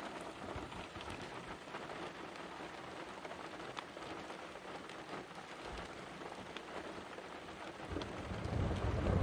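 Steady rain falling, with scattered ticks of single drops. About a second before the end, a low thunder rumble sets in and swells.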